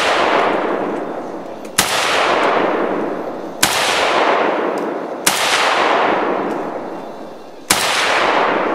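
Century Arms CETME semi-automatic rifle in .308 fired four times, a shot roughly every two seconds, each sharp crack followed by a long echo dying away.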